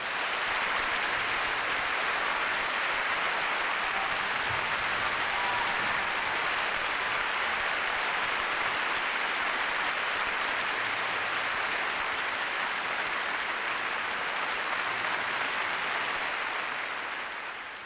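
Concert hall audience applauding steadily, a dense wash of clapping that fades out near the end.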